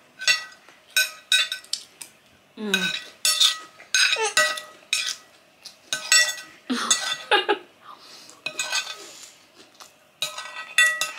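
Metal spoon and fork scraping and clinking on a ceramic plate: a run of short, sharp clinks that ring briefly.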